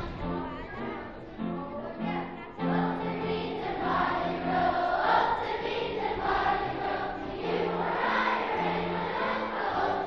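Country dance song with singing and a bass line of short repeated notes, briefly dipping in loudness about two and a half seconds in.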